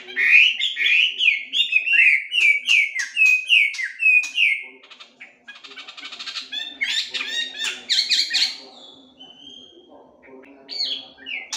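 Melodious laughingthrush (hwamei) singing: a run of loud, slurred, rising and falling whistles, then after a short break a burst of rapid notes, a quieter spell, and the whistles starting again near the end.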